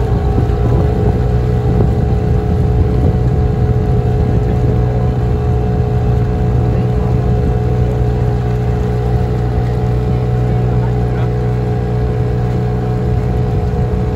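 Engine running steadily at a constant speed, a low unchanging drone.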